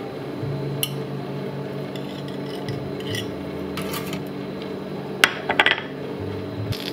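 Cafe counter work: utensils and dishes scraping and clinking, with a quick run of taps about five seconds in, over a steady hum of equipment.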